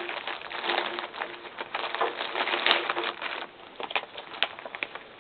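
Plastic packaging crinkling and rustling as a model kit package is opened and handled, with a few sharper clicks and taps in the last second or two as it quietens.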